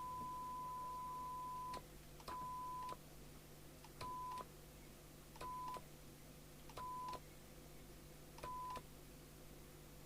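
Test tone from a signal generator played through a Binatone Route 66 CB radio's loudspeaker, gated by the squelch. A steady single-pitch tone breaks off about two seconds in, then comes back in short blips roughly every second and a half, each opening and closing with a click, as the signal sits right at the squelch threshold.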